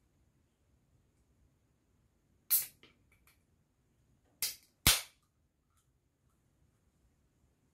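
Three sharp, crisp crackles as hands handle the burger buns on the plate. The first comes about two and a half seconds in, then a close pair near four and a half and five seconds, the last the loudest.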